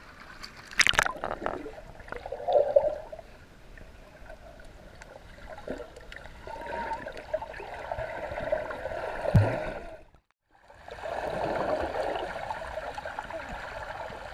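Swimming-pool water heard with the microphone underwater: a muffled gurgling and bubbling, with a sharp splash about a second in and a low thump about nine seconds in. The sound cuts out for half a second just after that, then resumes.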